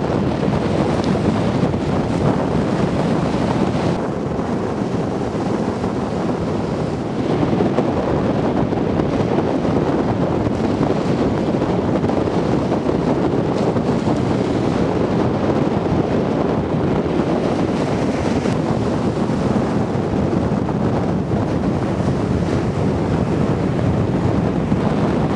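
Steady wind noise buffeting the microphone, a little louder from about a quarter of the way in.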